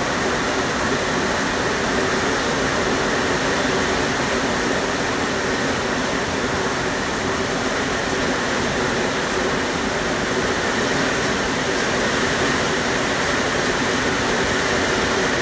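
Heavy rain falling steadily, an even, unbroken hiss of downpour.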